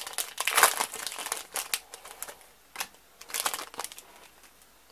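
Foil wrapper of a Pokémon trading card booster pack crinkling as it is opened and handled. The crinkling comes on and off, loudest about half a second in, and stops about four seconds in.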